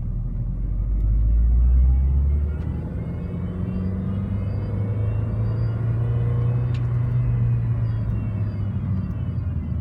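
2005 Mini Cooper S engine running while the car is driven, with a faint whine above the engine note that rises and then falls in pitch. This is the strange "electrical"-sounding noise that shows up when accelerating, even at low speed.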